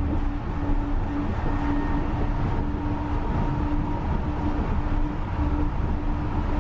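Kobe Port Liner rubber-tyred automated guideway train running, heard from inside the cabin: a steady low rumble of the tyres on the concrete guideway, with a hum that drops out briefly and returns every second or so.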